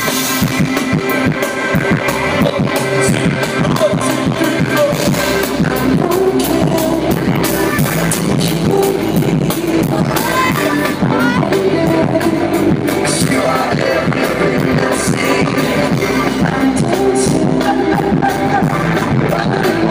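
Live pop band playing a song through an arena's PA system, starting abruptly and continuing at a steady loud level, recorded on a phone from the arena floor.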